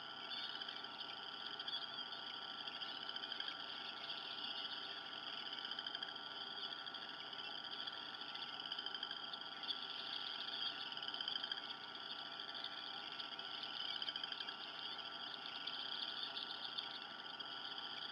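A continuous chorus of frogs trilling, steady throughout and pitched high.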